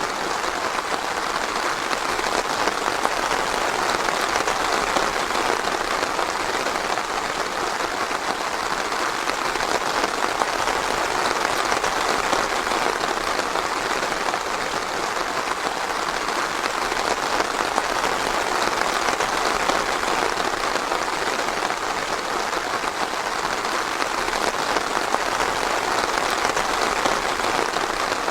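Steady, even rain falling, a continuous hiss of drops with no thunder or distinct splashes.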